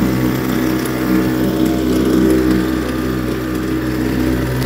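YADAO 3.5 hp two-stroke outboard motor running steadily at a constant speed during its break-in run, its propeller churning the water in a water-filled trash can.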